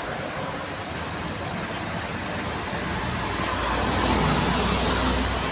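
Road traffic: a passing vehicle's engine and tyres, growing louder about three seconds in as it comes close, with a low engine rumble underneath.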